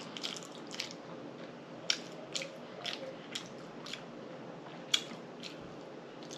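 Close-miked chewing of fried pork chops and grits: sharp mouth clicks and lip smacks, roughly two a second, with a short pause about two-thirds of the way through.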